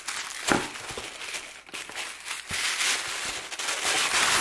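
Plastic packaging bags crinkling and rustling with dense crackling as hands dig a pair of shoes out of their wrapping in a cardboard box.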